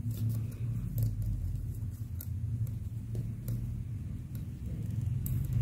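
Knitting needles clicking softly and irregularly as stitches are worked, over a steady low hum.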